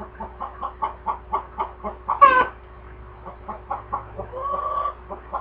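Chickens clucking: a quick run of short clucks, about four a second, with a louder squawk about two seconds in and a longer drawn-out call near the end.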